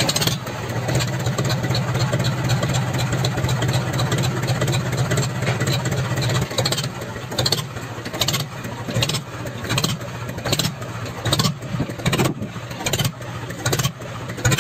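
Tractor engine running steadily. From about halfway on, a regular knock comes roughly every half second.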